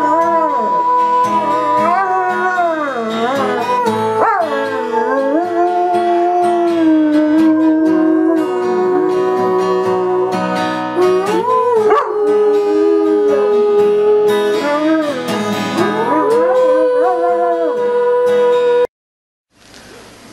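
A dog howling along with music: long, wavering howls that slide up and down and hold steady notes for several seconds at a time. It cuts off suddenly near the end.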